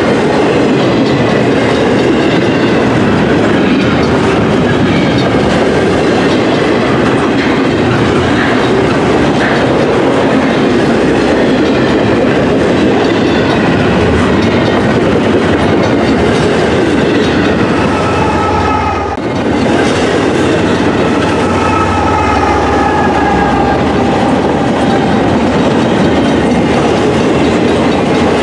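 Long double-stack intermodal freight train rolling past close by: a steady rumble of steel wheels on rail with clickety-clack over the joints. About halfway through, the mid-train GE ES44AC diesel locomotive (DPU) passes and adds a deeper engine drone, and thin high squeals from the wheels come and go in the later part.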